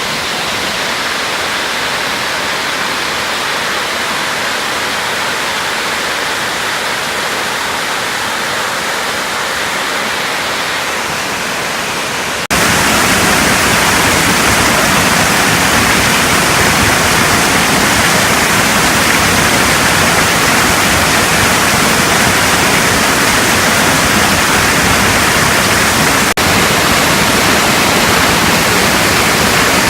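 Waterfall rushing: a steady, loud wash of falling water that cuts suddenly about twelve seconds in to a louder, deeper rush, with another brief break a few seconds before the end.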